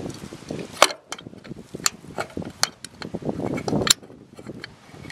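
Fuel filler flap of a 1961 Hillman Super Minx being worked by hand: several sharp metal clicks and taps as the flap is opened and snapped shut, the loudest about a second in and near four seconds in.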